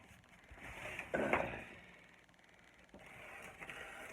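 Cardboard shipping box being opened by hand: irregular rustling and scraping in two spells, the louder one about a second in.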